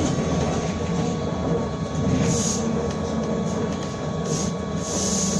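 Cabin noise of a BKM-32102 trolleybus under way: a steady hum and rumble with one constant whine running through it. A few short hisses come about two, four and five seconds in.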